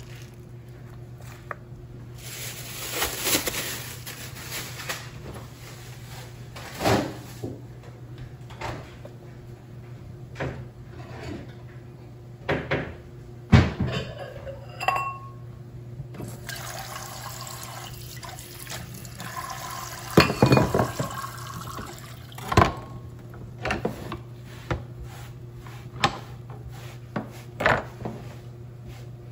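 Water splashing and running in a stainless steel sink around a bowl of cut cabbage and broccoli, in two spells, with scattered knocks and clatter against the sink and bowl. A steady low hum runs underneath.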